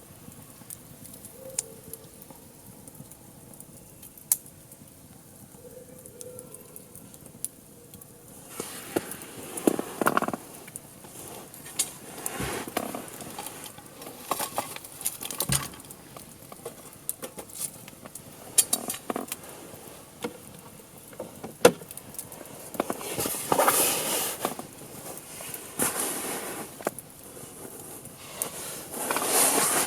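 Wood fire burning in a fire pit, crackling with sharp scattered pops, busier from about eight seconds in, with swells of hiss from the flames.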